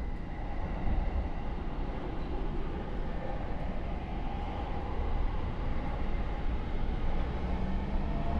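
JR East E231-series (800 subseries) electric train heard from inside a motor car: a steady low rumble as it pulls away. Near the end the Mitsubishi IGBT VVVF inverter and traction motors start a rising whine as it accelerates.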